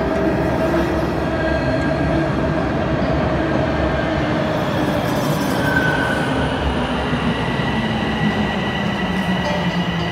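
Toronto subway train running alongside the platform: a loud, steady rumble with long high-pitched tones over it, likely wheel squeal.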